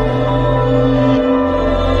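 Slow ambient background music with long held chords and no beat; the deep bass note shifts to a new one about a second in.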